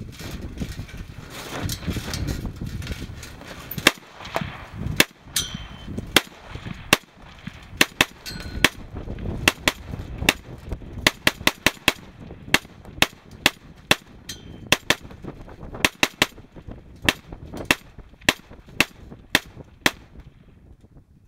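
Ruger Mini-14 semi-automatic rifle firing a fast string of about thirty shots, roughly two a second, starting about four seconds in and stopping shortly before the end. Wind rumbles on the microphone in the first few seconds.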